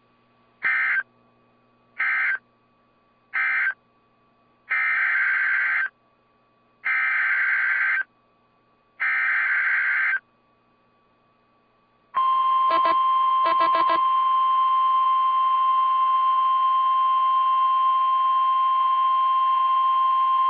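Emergency Alert System data signal between two weather warnings. First come three short warbling SAME data bursts, the end-of-message code closing the previous warning, then three longer bursts of about a second each, the SAME header of the next warning. After a short pause comes a steady single alert tone near 1 kHz, the NOAA Weather Radio 1050 Hz warning tone, held for about nine seconds, with a few clicks soon after it starts.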